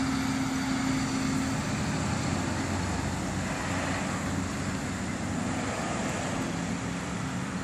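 Distant, steady droning rumble with a low hum that weakens about a second and a half in, the whole sound slowly fading. It is the unexplained sky sound the recorder could not identify, which he says is going away.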